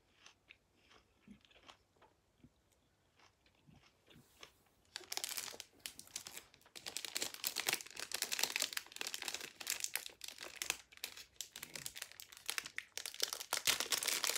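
Faint chewing and mouth clicks, then about five seconds in a plastic packet starts crinkling loudly and keeps crinkling as it is handled and torn open with the teeth.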